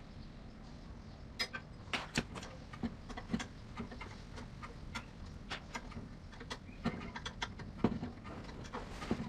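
Irregular sharp clicks and light knocks of metal tools and parts being handled, starting about a second in, with a few louder knocks among them.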